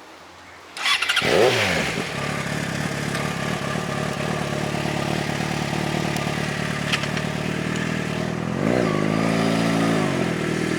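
Yamaha FZ6R's inline-four engine starting about a second in, flaring up and settling into a steady idle, then revved once and let fall back near the end.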